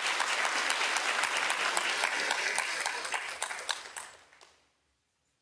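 Audience applauding, the clapping tapering off and stopping about four and a half seconds in.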